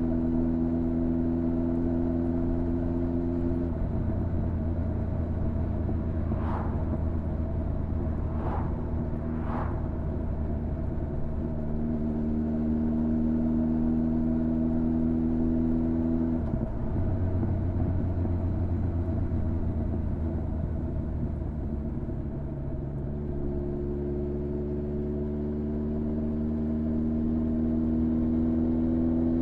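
Honda CB1300's inline-four engine running steadily under way, heard from on board, its pitch stepping down or up several times with throttle and gear changes and rising slowly near the end. Three short hisses come a few seconds in.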